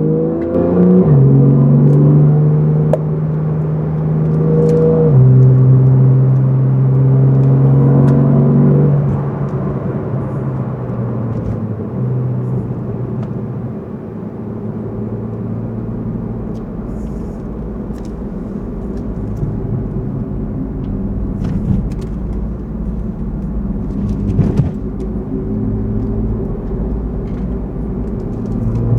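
Porsche 911's flat-six engine running under way, its pitch holding steady and then stepping between levels, over a steady low rumble of tyres and road.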